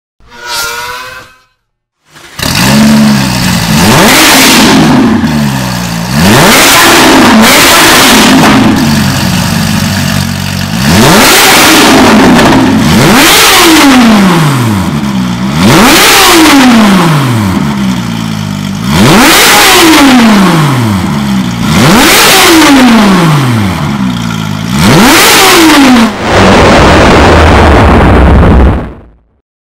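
Porsche 997 GT3 RS flat-six, breathing through a de-catted header and a valved catback exhaust, revved repeatedly with the car standing still. There are about eight blips, each climbing and then falling back toward idle, and a longer held rev near the end that cuts off suddenly.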